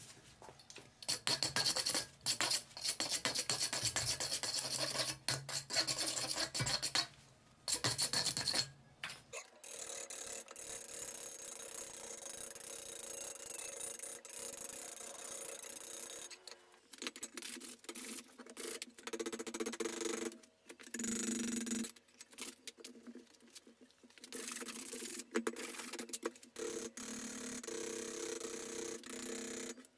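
Rapid, light blows of a small hand hammer on red-hot iron lying on an anvil, with a few short pauses. The blacksmith is distressing the surface of a reworked wagon brake roller so that the new and old iron look like one piece.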